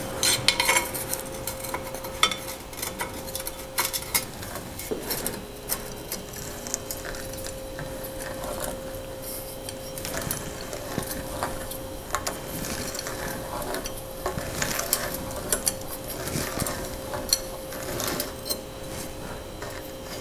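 Light metallic clicks and scraping of a spanner and the threaded bottom bracket cup as it is unscrewed from a steel bicycle frame's bottom bracket shell, with rustling of a shop rag. A faint steady hum runs underneath.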